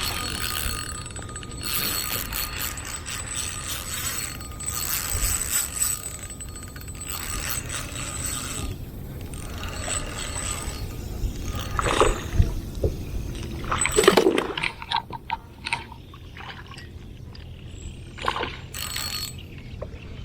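Fishing reel being cranked in stretches, its gears whirring and clicking, as a fish is reeled in. Two louder bursts of noise come about two thirds of the way through.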